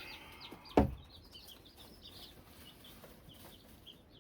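Young chicks cheeping repeatedly in short, high peeps, with one sharp knock about a second in.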